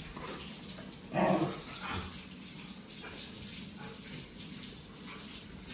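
Dogs play-fighting on a hard floor: one lets out a loud, brief growl about a second in and a shorter one just after, over the scuffling of paws and claws.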